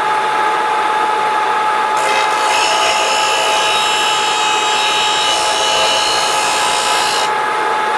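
Electric sanding machine running with a steady whine; about two seconds in, a chainsaw bar's rail edges are pressed against the abrasive, adding a high grinding hiss that stops about seven seconds in while the motor keeps running. The sanding is levelling the bar's uneven rails.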